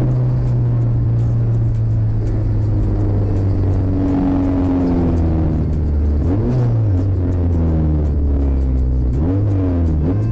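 Car engine heard from inside the cabin as the car slows from highway speed, its pitch falling gradually, with two brief rises and falls in pitch in the second half.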